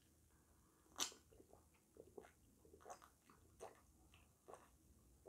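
Faint gulping and swallowing while drinking from a paper cup: a series of short, soft mouth sounds, the clearest about a second in, then smaller ones every half second or so.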